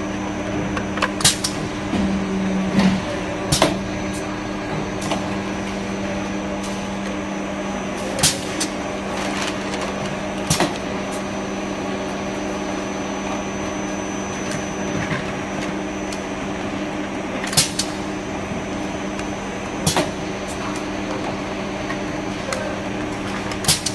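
Steady machine hum with a low tone, broken every few seconds by a sharp clack as hard plastic containers are handled at a manual filling machine and set down on the table.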